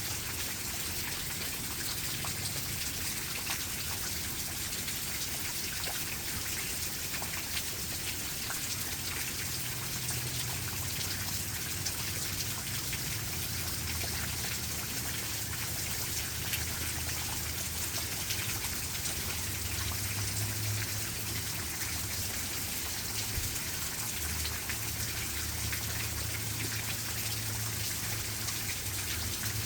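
Steady rain, a dense even patter of many small drops. A low hum underneath comes and goes, stronger in the second half.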